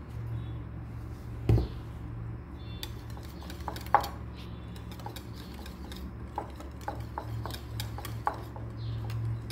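A wire whisk stirring a thick yogurt sauce in a ceramic bowl, its wires clicking and scraping against the bowl from about three seconds in. There is a single dull knock about a second and a half in, all over a steady low hum.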